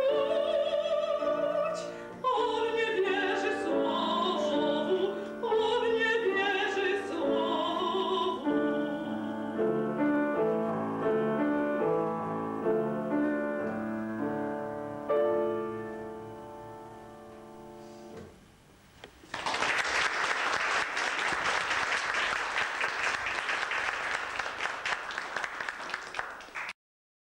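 A woman sings a classical art song in an operatic voice with wide vibrato, accompanied by piano. Her voice ends about a third of the way in, and the piano plays on alone, fading out past the middle. Then the audience applauds until the sound cuts off suddenly near the end.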